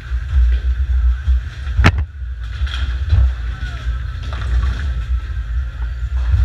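Bowling alley din: a steady low rumble of bowling balls rolling on the lanes, with one sharp knock a little under two seconds in and a few fainter knocks after it.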